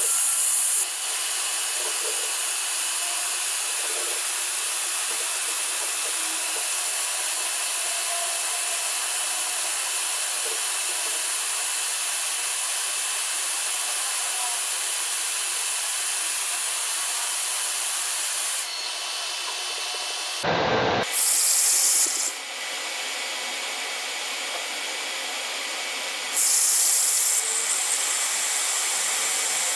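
Anycubic Kobra 2 Neo 3D printer's cooling fans running with a steady hiss while the printer preheats for auto-leveling. It breaks off for a moment about two-thirds through and turns louder for about a second, twice.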